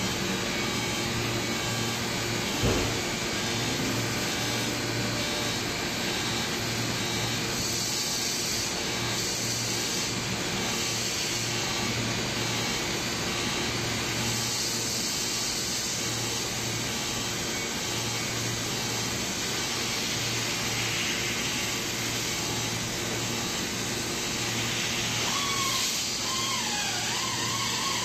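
Automatic TIG welding machine welding an aluminium tank seam: a steady hum and hiss from the arc and machine, with one thump about three seconds in.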